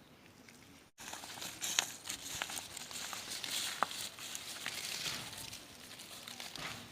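Rustling, crinkling noise with scattered sharp clicks, starting after a brief break about a second in.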